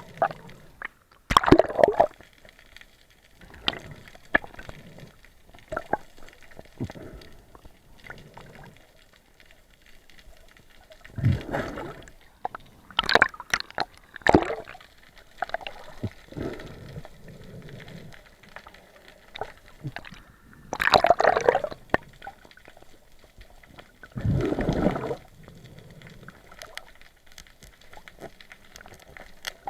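Water gurgling and splashing in irregular bursts several seconds apart, with quieter bubbling between them.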